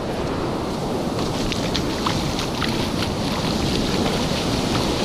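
Ocean surf breaking and washing up over the sand, with wind rumbling on the microphone.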